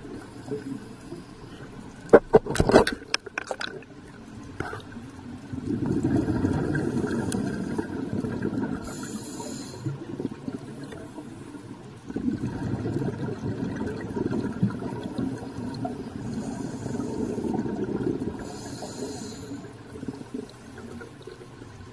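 Scuba regulator breathing heard underwater: short hisses of inhaled air and long stretches of gurgling exhaled bubbles. A few sharp knocks come two to three seconds in.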